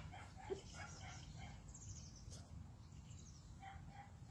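Quiet outdoor ambience with a few faint, short bird chirps in the distance.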